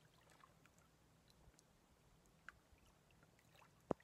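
Near silence: quiet outdoor room tone with a few faint ticks, a small click about two and a half seconds in and a sharper click near the end.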